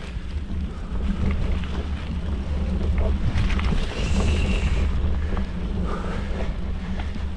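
Yeti SB115 mountain bike rolling over dirt singletrack: Maxxis Minion DHR tires running with a steady low rumble, wind buffeting the handlebar microphone, and scattered rattles and knocks from the trail. A brief high squeal about four seconds in and a lower one about two seconds later, typical of disc brakes squealing under braking.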